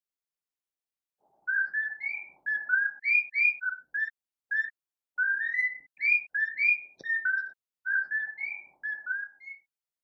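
Cockatiel whistling a tune: phrases of short clear whistled notes, many sliding upward, beginning about a second and a half in and breaking off briefly between phrases.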